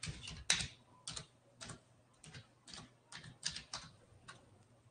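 Computer keyboard keys being typed: an irregular run of light clicks, roughly three a second, the loudest about half a second in.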